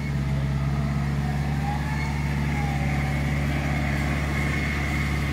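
Tractor engine running steadily while driving a tractor-mounted Hasatsan H 4000 hydraulic tree shaker, with a faint high whine over the low hum.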